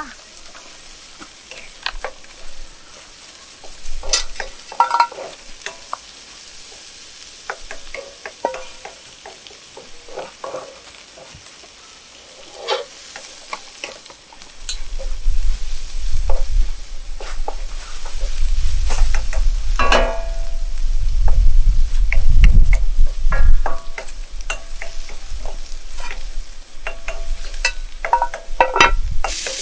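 Wooden spatula stirring and scraping onions frying in a wok, with a light sizzle. About halfway a low rumble comes in and is the loudest part.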